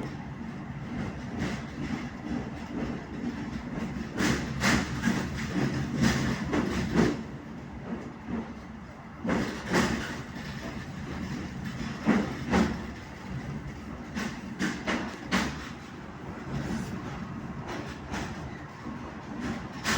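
Passenger train running on the rails: a steady low rumble with irregular clacks and knocks from the wheels and carriages, some of them louder, in clusters.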